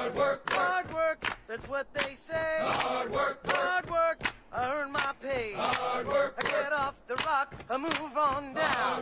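A crowded flock of sheep bleating, many wavering calls overlapping continuously.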